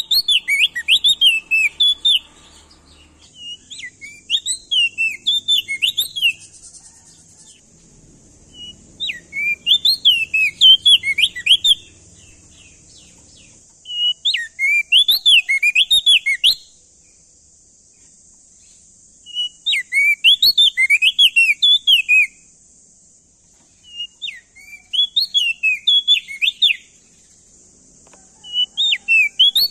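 A prenjak daun (opior jambul) songbird singing loud phrases of rapid, chirping notes, each phrase two to three seconds long and repeated every four to five seconds with short pauses between.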